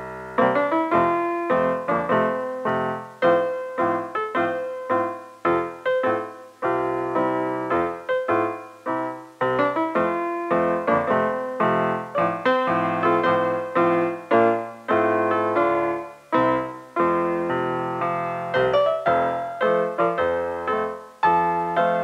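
Piano music: a steady stream of struck notes, each dying away before the next.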